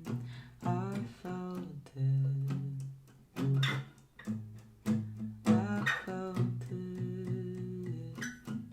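Guitar playing the instrumental close of a stripped-down song: a run of plucked notes and chords with short gaps between phrases.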